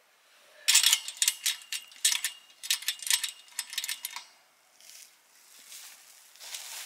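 Small fire in a fire bowl crackling: a quick, irregular run of sharp snaps and pops, easing off for a couple of seconds, then picking up again near the end.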